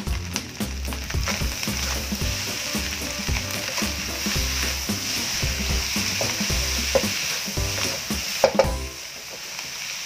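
Seafood fried rice sizzling in a nonstick wok while a wooden spatula stirs and turns it, with scrapes and knocks of the spatula on the pan. A louder knock comes about eight and a half seconds in, after which the sizzle is a little quieter.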